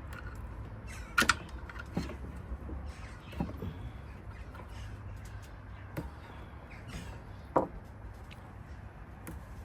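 Scattered sharp knocks and clicks of hands and tools working on an electric scooter's rear wheel assembly, a part that is held fast by glue, over a low steady hum. The loudest are a double knock about a second in and a short knock near the end.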